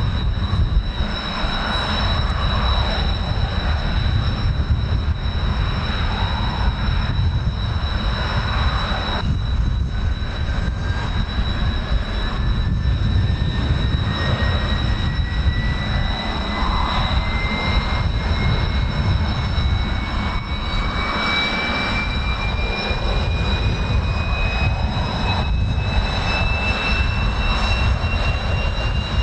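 Blue Impulse Kawasaki T-4 jet engines running with a steady high whine. About a third of the way in, another whine starts and climbs slowly in pitch. Under it all is a heavy low rumble from strong wind buffeting the microphone.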